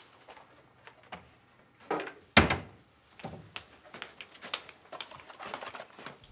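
Footsteps on a hard classroom floor, short clicks about three a second, with one loud thump a little over two seconds in.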